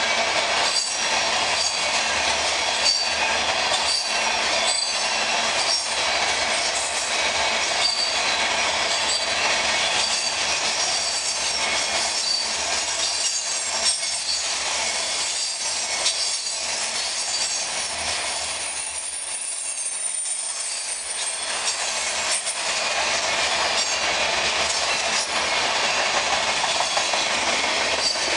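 Empty railroad tank cars of a freight oil-return train rolling past: a steady rumble of steel wheels on rail, with regular clicking of the wheels about once a second and a thin, high wheel squeal.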